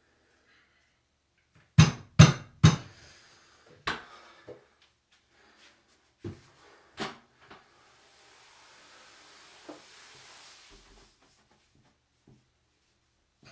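Heavy thuds and knocks: three loud ones in quick succession about two seconds in, then a few lighter knocks spread over the next five seconds. A soft hiss follows for about three seconds.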